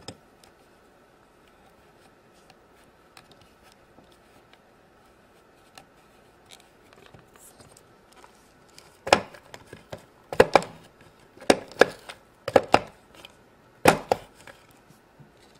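Quiet handling of dough on a plastic toy pizza-oven mold, then from about nine seconds in, sharp hard-plastic clicks and knocks, about five pairs a second or so apart, as the oven mold is worked by hand to press out a dough topping.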